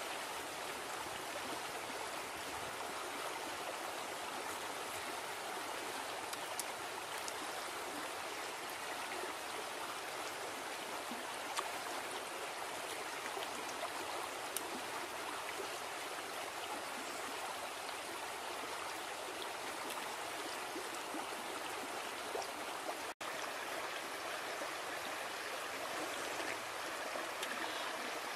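Steady rushing of running water, like a stream, with a few faint clicks.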